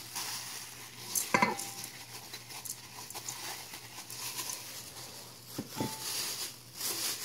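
Dry glutinous rice grains pouring from a ceramic bowl into a pressure cooker's inner pot, pattering and rustling, with a few light knocks of bowl and hand against the pot. A plastic glove crinkles near the end.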